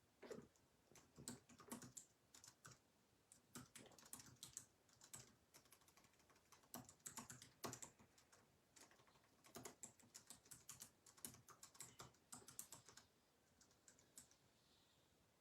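Faint computer keyboard typing: irregular runs of quick key clicks with short pauses between them.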